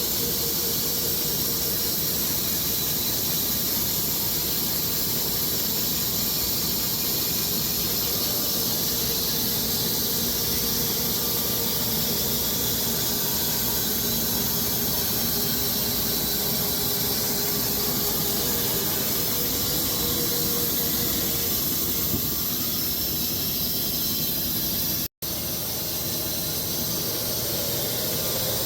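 Electric Wood-Mizer LX250 band sawmill cutting through walnut and oak logs: a steady high hiss from the band blade and machine. It cuts out for a split second about 25 seconds in.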